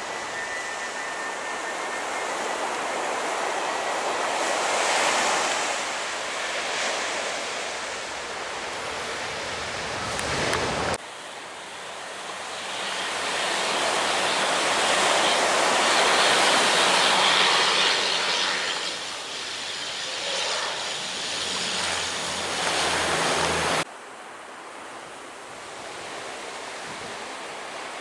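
Airliners on final approach over a beach with surf behind: a Boeing 787's jet noise swells and fades, then an ATR turboprop's rushing noise builds with a low, steady propeller hum. The sound cuts off abruptly twice.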